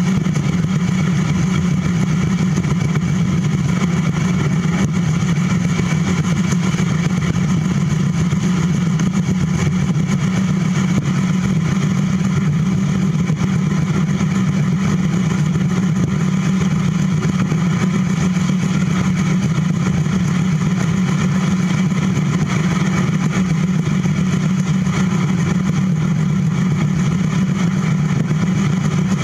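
Steady rumble and hum of a bicycle rolling at a constant speed on a concrete trail: tyre and wind noise picked up by a handlebar-mounted camera. It stays unchanged throughout.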